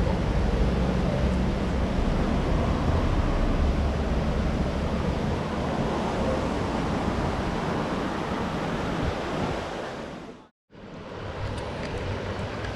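Steady rushing roar of nearby road traffic, with a heavy low rumble. The sound drops out abruptly for a moment about ten seconds in, then comes back.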